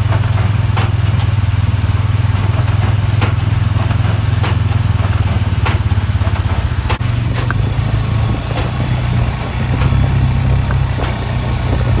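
Case IH Puma 150 tractor's six-cylinder diesel running steadily under load while it pulls a Case IH LBX324XLR large square baler through wheat straw. Sharp knocks repeat about every 1.2 seconds, the baler's plunger compressing straw, plain in the first half and fainter later.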